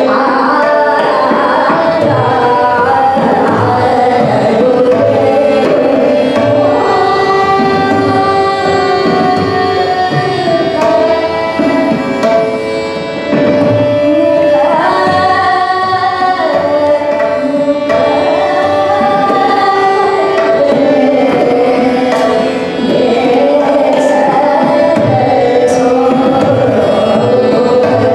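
Hindustani classical vocal: a woman singing a bandish with long held notes and slow glides, accompanied by tabla keeping a steady rhythm, likely in raga Kafi Kanada.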